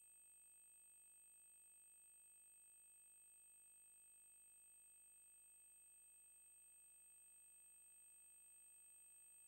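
Near silence: only a faint steady hiss with a few thin, high, unchanging tones from the recording's noise floor.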